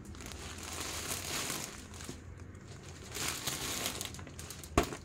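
Packaging crinkling and rustling as it is handled while new pillows are unwrapped, with a sharp click near the end.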